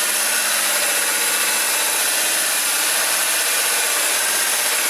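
Makita 18-volt cordless drill turning a 2-inch hole saw through a wooden board: a steady, loud cutting whir of the saw teeth in the wood.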